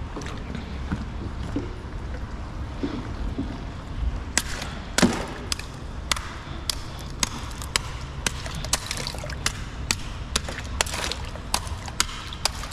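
A hand tool jabbing and scraping at barnacle-crusted shells on a concrete bridge piling. From about four seconds in it makes a string of sharp, irregular clicks, one or two a second, over a steady trickle of water lapping against the kayak.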